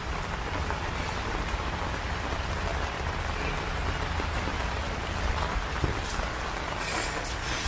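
Steady rain falling on wet ground, a constant even hiss of drops.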